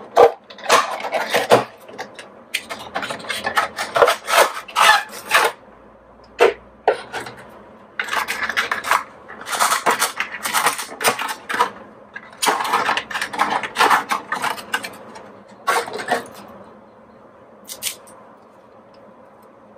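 Cardboard model box being opened and a clear plastic tray being slid out and handled, its plastic rubbing and crackling in a series of bursts a few seconds long with short quiet pauses between them.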